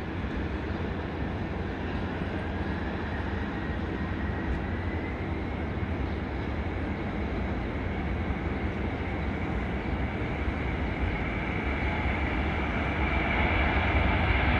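Three-engine jet noise from a McDonnell Douglas MD-11F freighter heard across an airfield as it starts its takeoff roll: a steady rushing rumble with a faint whine rising in pitch over the first several seconds, swelling louder near the end as the engines come up to takeoff power.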